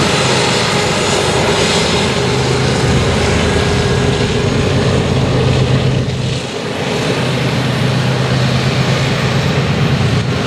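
Double-stack container train passing: a steady rumble and rush of steel wheels on rail with a low, even engine drone underneath. The drone dips briefly about six and a half seconds in, then comes back.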